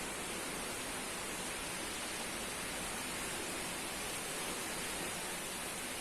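Strong wind blowing, a steady even rushing hiss with no gusts rising or falling.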